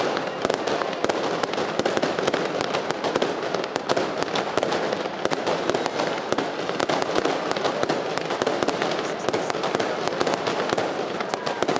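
Dense, rapid crackling of firecrackers over a loud, steady crowd din.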